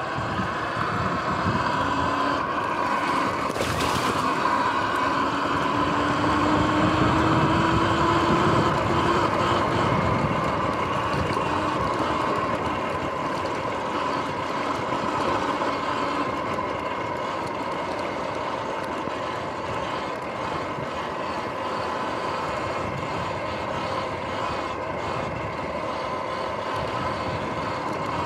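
Sur-Ron X electric dirt bike riding over grass: the motor and drivetrain whine rises slowly in pitch as it gathers speed over the first ten seconds, over a steady rush of tyre and wind noise. A single sharp knock comes about four seconds in.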